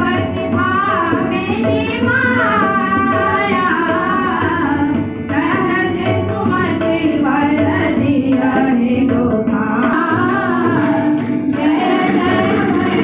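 A group of girls singing a song together, accompanied by a harmonium and tabla. The voices pause briefly twice between phrases while the harmonium's held tone carries on.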